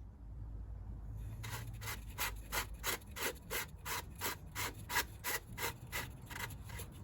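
A threaded fitting with a new O-ring being screwed back in: a run of short rubbing strokes, about three a second, starting about a second and a half in and stopping shortly before the end.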